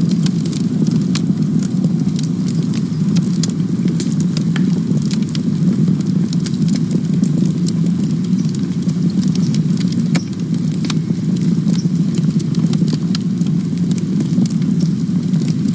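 Campfire burning: a steady low rush of flames with frequent sharp crackles and pops from the burning wood.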